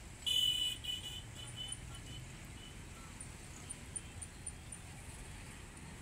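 Outdoor traffic ambience with a low steady rumble. A loud shrill call or toot sounds about a third of a second in, followed by a few shorter, fading repeats.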